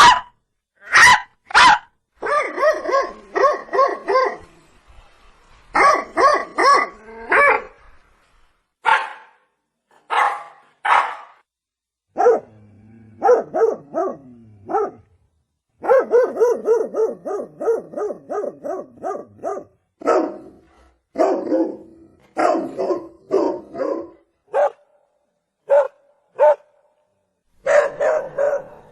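A dog barking, sometimes in single sharp barks and sometimes in fast runs of several barks, with short pauses between.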